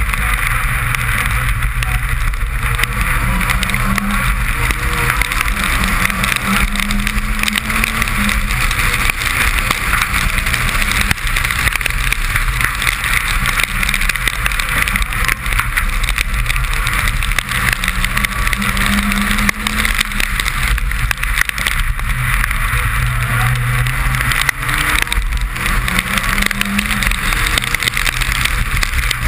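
Suzuki Swift rally car heard from inside the cabin, its engine running hard at stage speed with the note rising and falling. A steady hiss of spray and rain from the wet road runs under it.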